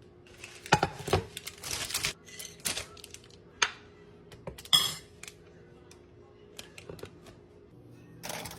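Scattered clicks, taps and short scrapes of kitchen utensils and dishes being handled, loudest about a second in and near five seconds in, over a faint steady hum.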